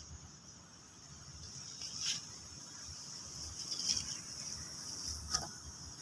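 Steady high-pitched insect drone, like crickets, with a few short sharp clicks about two, four and five and a half seconds in.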